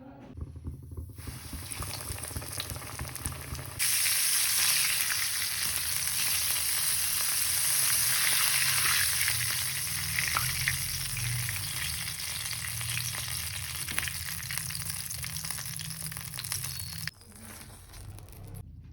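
Batter-coated oyster mushrooms sizzling and crackling as they fry in hot oil. The sizzle jumps louder about four seconds in and drops off abruptly a couple of seconds before the end.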